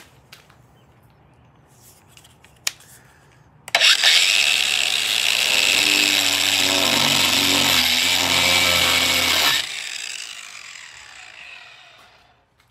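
Battery-powered Craftsman angle grinder with a deep-radius tungsten wood-grinding wheel, starting suddenly and grinding into a wooden post for about six seconds, then switched off and winding down over about three seconds. A few light handling clicks come before it starts.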